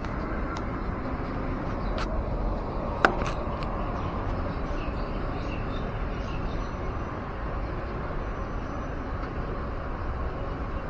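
Steady outdoor street noise of passing traffic, with a sharp click about three seconds in and a fainter one a second before.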